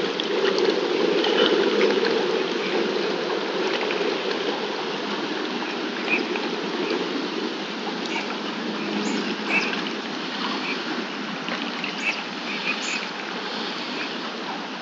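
Lake water lapping and trickling steadily, a little louder in the first few seconds, with a few faint short chirps here and there.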